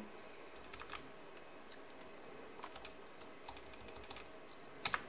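Faint, scattered computer keyboard keystrokes in small irregular groups, with a slightly louder pair of clicks near the end.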